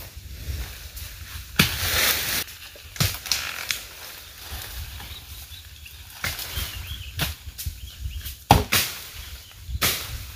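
Rustling with scattered swishes and knocks over a steady low rumble. The loudest bursts come about two seconds in and again near the end.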